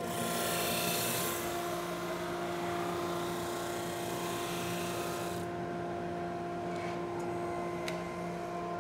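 Supermax 19-38 drum sander running with a steady hum while an assembled wooden box feeds under the sanding drum on its conveyor belt. A rushing sanding hiss drops away about five and a half seconds in, and a few light clicks follow near the end.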